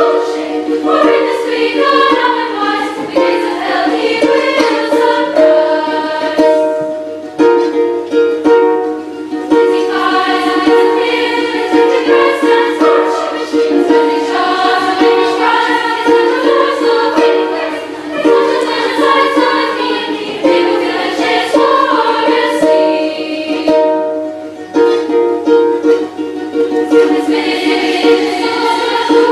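Girls' choir singing with a Lyon & Healy Style 85 concert grand pedal harp accompanying in plucked notes and chords.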